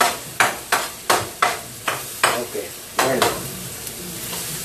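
A utensil scraping and stirring scrambled eggs in a frying pan over a steady sizzle of frying, in quick strokes about two to three a second that thin out near the end.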